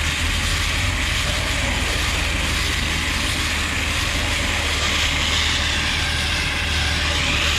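Tractor engine running steadily at constant speed, powering a bale wrapper as it turns a bale of haylage, with a steady low hum.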